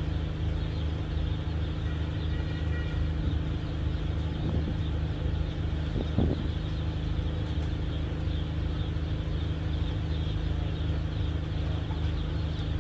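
A moored fast passenger ferry's engines idling: a steady low hum made of several even tones. A single short thump about six seconds in.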